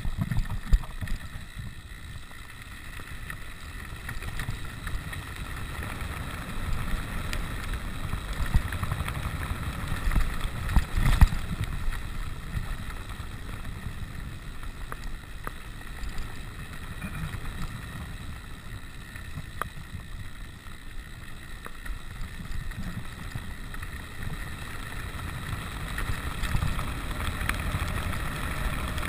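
Wind buffeting the microphone over the steady rumble of a rigid 29er mountain bike's tyres rolling fast on gravel, with a few sharp rattling knocks as the unsuspended bike hits bumps, the loudest about eleven seconds in.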